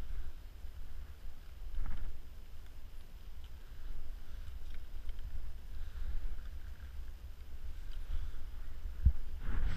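Wind buffeting the microphone, a steady low rumble, with a single sharp knock near the end.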